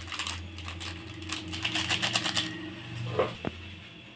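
A plastic soup sachet being tapped and shaken over a steel bowl to empty the last powder: a rapid run of quick dry ticks and crinkles for the first couple of seconds, over a steady low hum. Near the end comes a single sharp click, and the hum stops.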